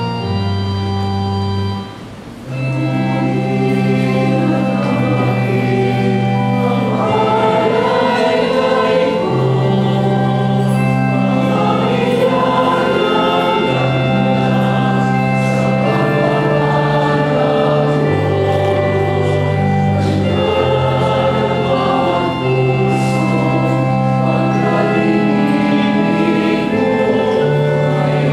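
Church choir singing a hymn, the offertory hymn of the Mass, over sustained organ chords. The organ plays alone at first, drops out briefly about two seconds in, and then the choir comes in.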